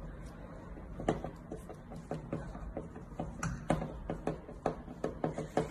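A hand screwdriver turning a screw into an aluminium frame profile: a run of small, irregular clicks and ticks of metal on metal, starting about a second in.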